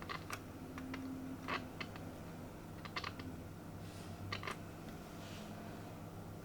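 Irregular light clicks and taps, a dozen or so, from handling small metal parts or test probes on the bench, over a steady low mains hum.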